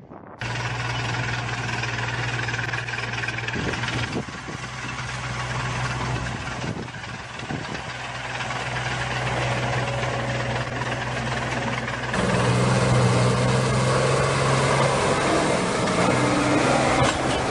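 Diesel engines of heavy forestry tractors running under load as they drive through deep mud, a steady low engine drone. The sound changes abruptly a few times and grows louder about twelve seconds in.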